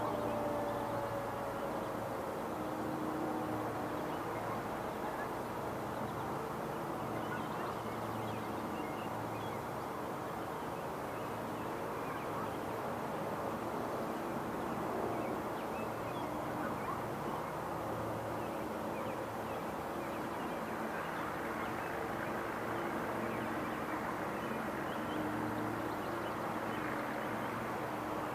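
Federal Signal 2001-series outdoor warning sirens winding down at the end of a test cycle, their pitch falling as they fade out in the first couple of seconds. A steady outdoor background hum follows, with faint tones drifting in and out.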